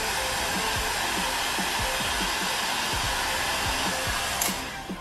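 Heat gun blowing steadily, switched off about four and a half seconds in.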